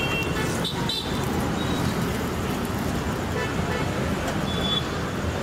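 Steady road traffic noise with a low rumble of passing vehicles, and a few short vehicle horn toots about a second in and again near the end.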